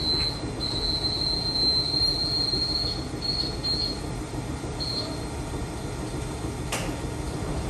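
Kotoden retro electric train, led by car 300, pulling slowly away. A steady high wheel squeal breaks up about three seconds in, over a low running rumble, and there is one sharp click near the end.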